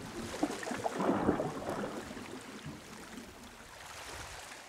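Shallow sea water splashing and gurgling around hands releasing a sea trout, loudest about a second in, then settling to gentle lapping of small waves.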